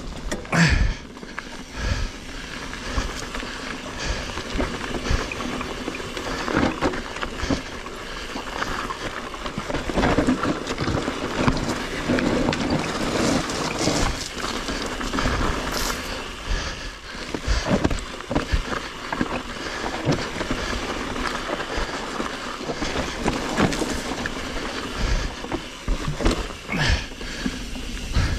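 Mountain bike riding down a loose dirt trail: steady tyre noise on the ground, with frequent knocks and rattles from the bike over bumps.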